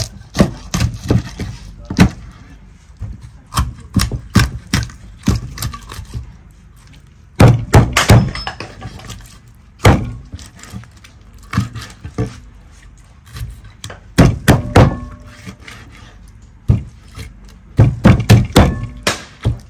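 Cleaver chopping through a whole fish on a wooden cutting board: a series of sharp thunks as the blade goes through the backbone into the board, irregular single blows with quick runs of several strikes about seven seconds in, around fourteen seconds in and near the end.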